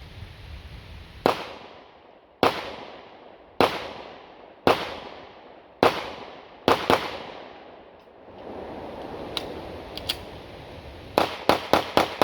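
Pistol shots: seven single shots about a second apart, each with a trailing echo, then a pause with a few faint clicks of a magazine change, then a fast string of about six shots near the end.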